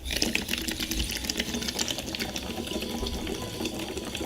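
Continuous rapid bubbling as a person exhales slowly through a tube into a water-filled breathing trainer, air pushed out against the water's resistance.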